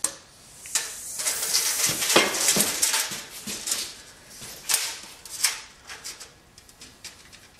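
A steel tape measure pulled out along a length of wooden crown molding, its blade scraping over the wood, with a few sharp clicks and knocks as the tape and molding are handled. The scraping is heaviest in the first few seconds and gives way to scattered light ticks.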